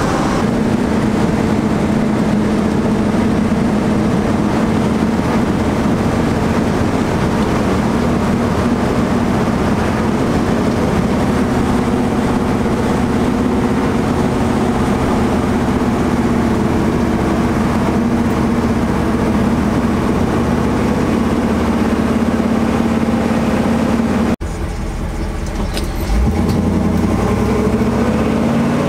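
Cammed 355 cubic-inch small-block Chevy V8 of a 1984 C10 pickup running at a steady cruise, heard from inside the cab. Near the end the sound drops briefly, then the engine pulls again with its pitch rising as the truck accelerates.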